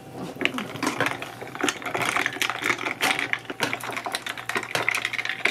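Ice cubes clinking and rattling against a drinking glass as a drink is stirred with a stick: a quick, uneven run of small clicks.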